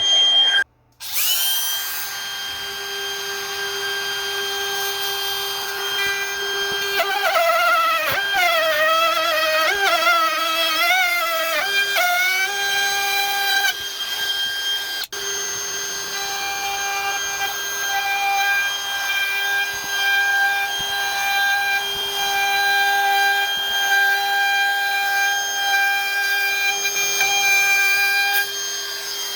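Handheld router running at high speed, with a steady high whine that sags and wavers for several seconds near the middle as the bit cuts under load, chamfering the edge of laminate-topped panels. The sound breaks off briefly about a second in and again about halfway through.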